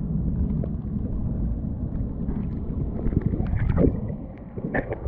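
Muffled water rumbling and sloshing around a waterproof camera held under water. Sharp splashes and clicks follow in the second half as the camera breaks the surface.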